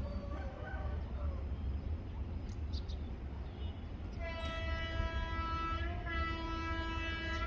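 Horn of a railway track maintenance vehicle sounding a long blast of about three seconds, starting a little past halfway and dipping briefly near its middle, over a steady low rumble.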